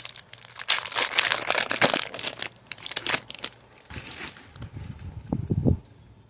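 Foil Pokémon booster pack wrapper crinkling as it is torn open and handled, followed by a few soft low bumps near the end.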